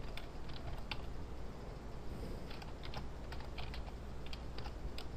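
Typing on a computer keyboard: a run of irregular keystroke clicks as code is entered.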